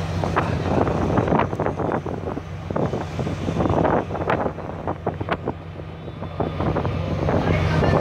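Strong wind buffeting the microphone in gusts on a ferry's open deck, over the steady low hum of the ship's engines.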